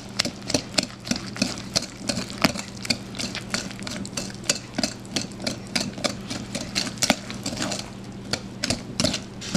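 A wire whisk beating eggs into a sugar and cornstarch mix in a bowl, the whisk clicking against the bowl's side about three times a second, over a steady low hum.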